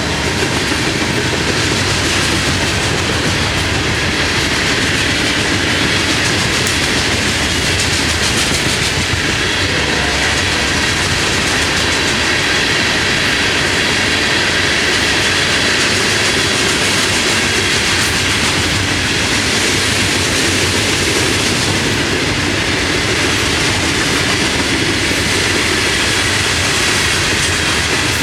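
Long freight train rolling past close by: a steady rumble and clatter of steel wheels on the rails that keeps going without a break.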